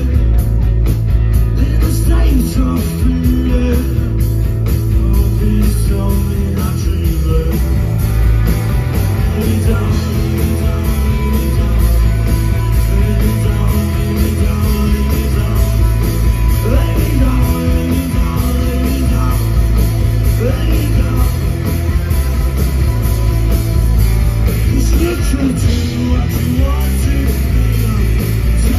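Live rock band playing loud: electric guitars, bass guitar and drums, with a sung lead vocal.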